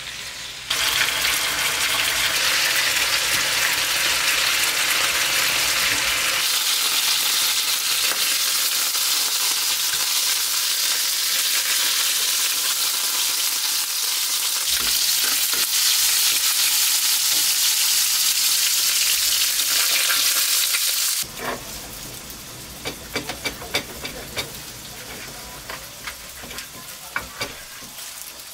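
Beef steaks and asparagus sizzling loudly in a hot frying pan, a steady hiss that cuts off abruptly about twenty seconds in. After that it is much quieter, with scattered sharp clicks of a knife slicing the cooked steak on a wooden cutting board.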